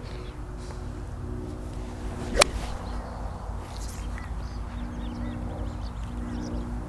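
A single sharp crack of a 4 iron striking a golf ball on a full swing, about two and a half seconds in, over a steady low background rumble.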